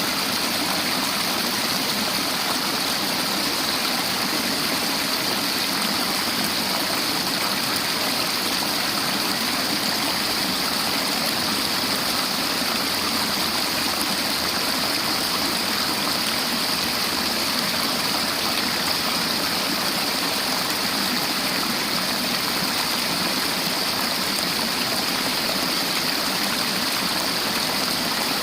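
River water flowing over stones, a steady rushing hiss.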